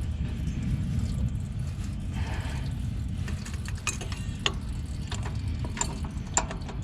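Light clicks and taps from the small metal carburetor fuel bowl being handled and cleaned, with a short hiss about two seconds in, over a steady low rumble.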